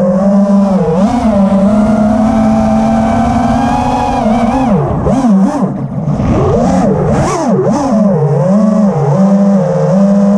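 Motors and propellers of a 6S FPV freestyle quadcopter, heard from on board: a steady, loud motor whine that rises and falls with the throttle, sweeping sharply up and down in pitch through a flip or roll in the middle, with brief hissy rushes of air.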